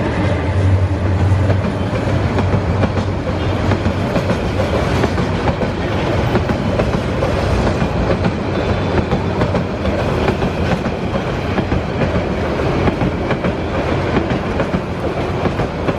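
Train cars running past on the track: a steady rumble of wheels on the rails with a continuous clickety-clack over the rail joints.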